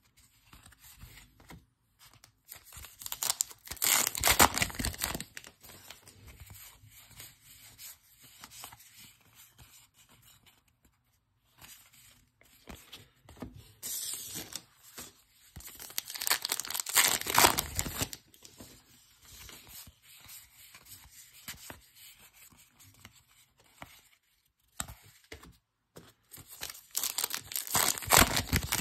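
Topps Allen & Ginter baseball card pack wrappers torn open, heard as three loud tearing, crinkling bursts: a few seconds in, midway, and near the end. Quieter rubbing and shuffling of cards fills the time between them.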